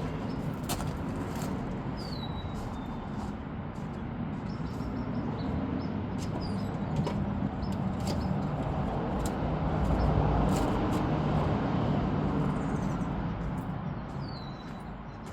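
Outdoor background noise with a low hum that swells to a peak about ten seconds in and then fades, like a vehicle passing. A few short clicks and knocks sound over it, and a bird gives a brief falling chirp twice.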